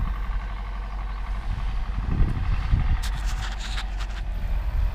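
Wind buffeting the microphone as a steady low rumble that swells in gusts. A brief burst of clicking and rustling comes about three seconds in.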